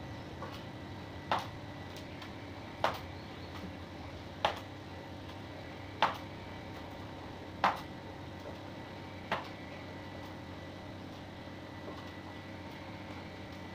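String mop being worked across a wet tiled floor, with six sharp knocks at a steady pace, about one every second and a half, that stop near the end, over a low steady background hiss.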